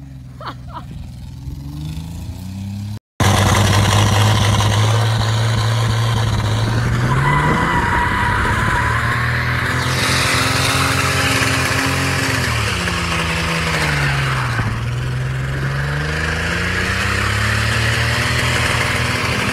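Holden VY Commodore's engine revving hard through a skid on grass, the rear wheels spinning in their own smoke. A quieter stretch of revving cuts off abruptly about three seconds in. The revs then climb, hold high, drop about fourteen seconds in and climb again.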